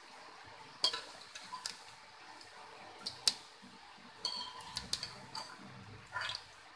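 Metal wire-mesh skimmer and slotted spatula clinking and scraping against the kadhai as fried pakoras are lifted out of the oil: scattered light clicks, about a dozen, the sharpest a little past three seconds in.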